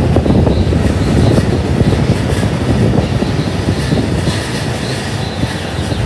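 JR Yokohama Line E233-6000 series electric train running over curved track: a steady wheel-on-rail rumble and rattle, with a faint high squeal from the wheels on the curve coming and going. It grows gradually quieter as the train draws away.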